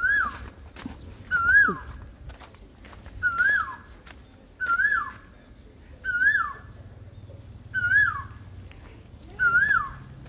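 A puppy whining in short, high-pitched cries that rise and then fall, about one every second and a half, seven in all, begging for the fried chicken held out of its reach.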